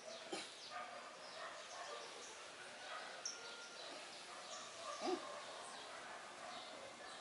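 Faint background birdsong of short chirps, and a dog giving a brief vocal sound about five seconds in, the loudest moment.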